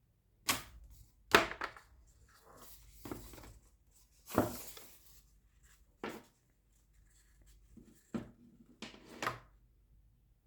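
Handling noises from unboxing a mechanical keyboard: about seven separate knocks and short rustles of packaging, the longest about four and a half seconds in.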